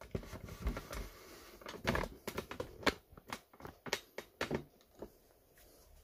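Irregular clicks and light knocks of small tool parts being handled on a wooden table, a dozen or so, the loudest about two and three seconds in.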